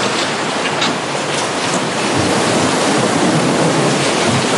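Tsunami floodwater rushing through a town street: a loud, steady noise of churning water, with a few sharp crackles in the first two seconds.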